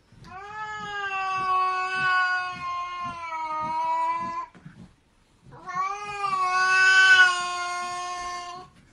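Domestic cat yowling: two long drawn-out calls of a few seconds each, held at a fairly steady pitch, with a short break between them.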